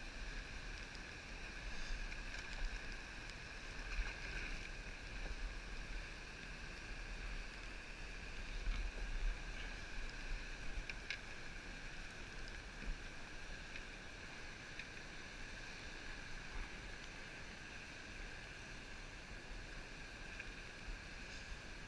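Steady water noise around a kayak on open water, with a few faint clicks and knocks.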